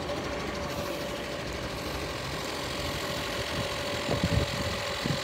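An engine idling steadily, with a constant whine over its hum. A couple of short thuds come about four seconds in.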